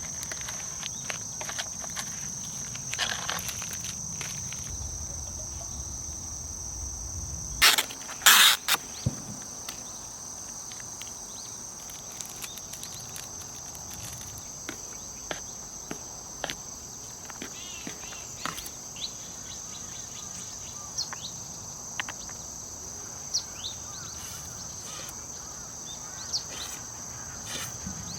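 Crickets chirping in a steady high drone, with scattered small clicks of handling. About eight seconds in there is a short cluster of loud clicks and rustles.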